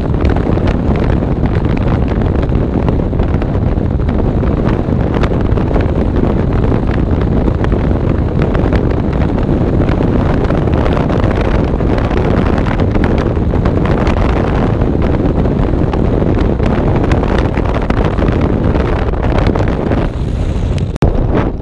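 Steady heavy wind noise on the microphone over the rumble of a moving car's road and engine noise, dipping briefly near the end.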